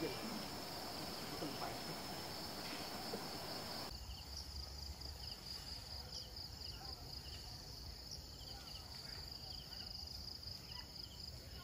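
Steady high-pitched insect chorus. From about four seconds in, short chirps repeat throughout.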